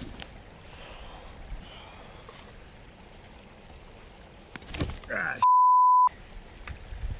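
A short voiced outburst about five seconds in, cut off by a censor bleep: a single steady beep lasting about half a second, with all other sound muted under it. A low outdoor background hiss runs beneath.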